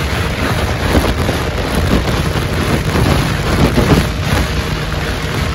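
Yamaha YZF-R6's 600cc inline-four engine running as the bike is ridden, under heavy wind noise buffeting the microphone.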